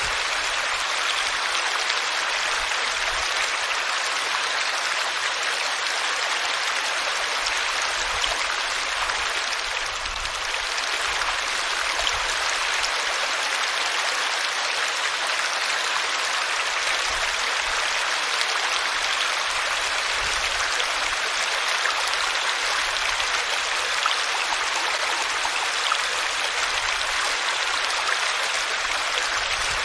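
Water flowing in a small stream, a steady rushing burble.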